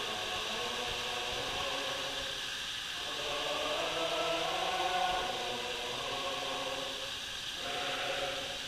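Chant-like singing: voices holding long notes that shift in pitch a few times, over a steady hiss.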